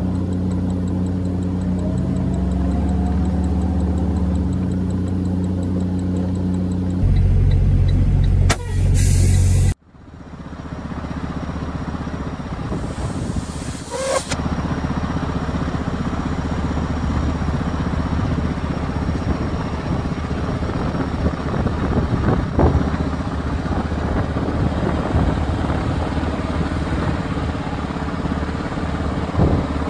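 Box truck's engine running while driving, its note changing and getting louder about seven seconds in. After a sudden cut, the truck's engine runs steadily, heard from outside beside the box body, with a click and a few knocks.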